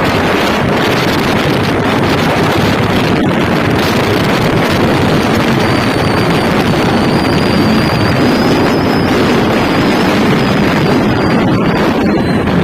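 Motorcycle riding at road speed: heavy wind rushing over the microphone, with the engine running steadily underneath.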